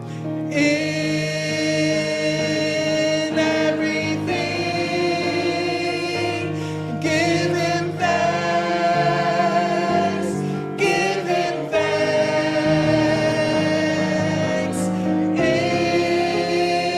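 Church choir singing a gospel song in harmony, holding long sustained chords in several phrases.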